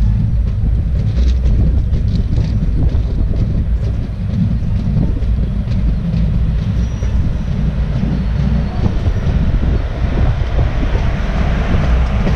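Passenger train running at speed, heard from on board: a steady heavy rumble of wheels on rails with wind on the microphone. From about ten seconds in, a rushing noise builds as an oncoming express hauled by a WAP4 electric locomotive passes close on the next track.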